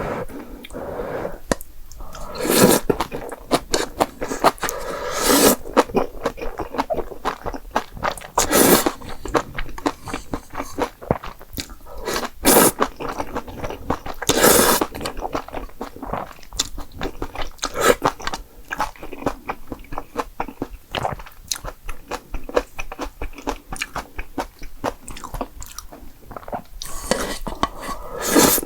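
A person eating close to the microphone: steady chewing and crunching of green onion kimchi and jjapagetti noodles, with a louder bite every few seconds.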